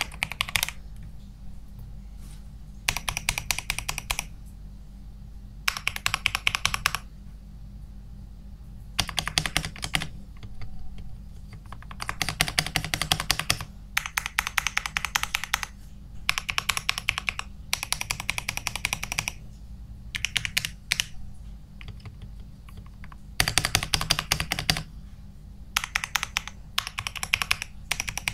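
Typing test on a modded 65% Digital Alliance Meca Air mechanical keyboard in an acrylic case, built for a clacky sound. Quick runs of keystrokes, each about a second long, come with short pauses between them.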